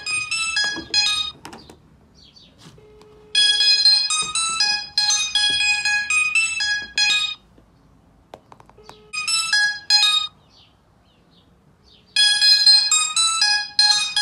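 Mobile phone tone: a bright electronic melody of quick bell-like notes, played in repeated phrases with short pauses between them.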